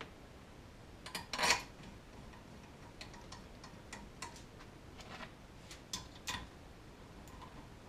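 Small metal cover bolts clinking as they are picked up and started by hand into an Arctic Cat primary clutch cover: scattered light clicks, with a short louder clatter about a second and a half in.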